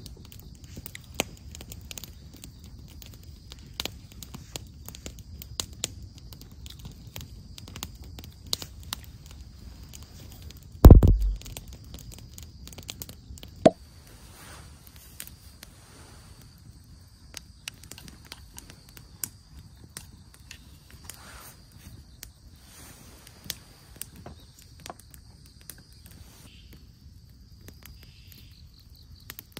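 Scattered light clicks and crackles over a low outdoor rumble, with one heavy thud about eleven seconds in, the loudest sound. A faint steady high-pitched tone runs underneath.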